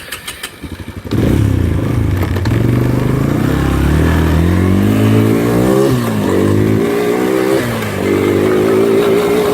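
Four-wheeler (ATV) engine cranking on its starter for about a second, then catching and running loudly. Its pitch climbs, drops back, climbs again and drops again before settling, as the quad pulls away and accelerates.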